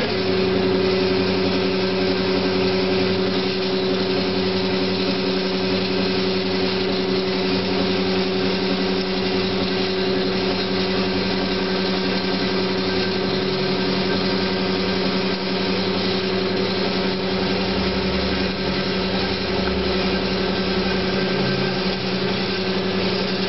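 DoAll 916-M horizontal band saw switched on and running under power, with a steady hum from the motor and blade drive as the saw head feeds down.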